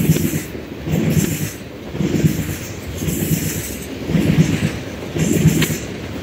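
Freight train of crude oil tank cars rolling slowly past, its wheels clattering over the rails in a regular beat of about one surge per second.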